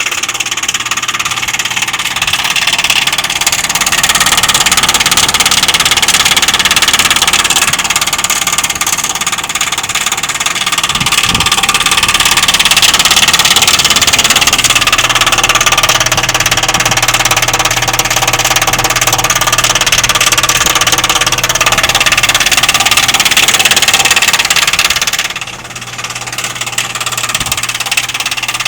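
Outdoor heat pump unit running loud and steady, a low hum under a broad rushing noise, which the owner has been told is the unit's defrost cycle. The noise drops briefly about 25 seconds in, then carries on.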